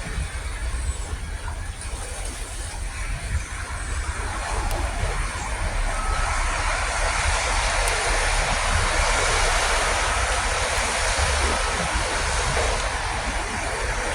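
Road traffic running past, a steady rumbling noise that swells louder from about halfway through as a vehicle draws closer.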